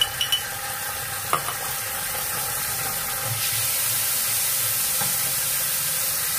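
Sugar, oil and a spoonful of Chinese paste sizzling steadily in a hot nonstick frying pan, the hiss a little brighter in the second half. A few light spoon clinks come near the start and again about a second and a half in.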